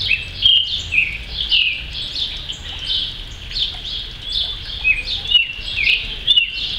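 Creamy-bellied thrush (Turdus amaurochalinus) singing: a continuous run of short whistled notes and quick phrases, one after another without pause.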